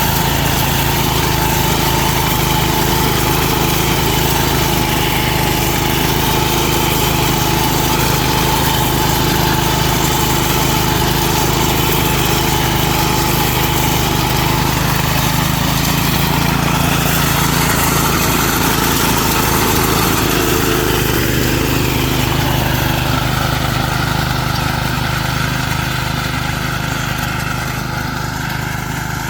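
Small engine of a rice reaper running steadily; its pitch shifts about twenty seconds in, and it gets a little quieter near the end.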